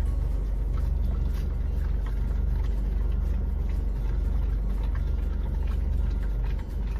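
A steady low rumble that starts abruptly and holds at an even level, with a few faint ticks over it.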